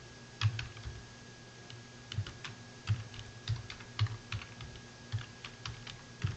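Computer keyboard keystrokes as a Linux command is typed, irregular single clicks with a short pause about a second in, over a faint steady hum.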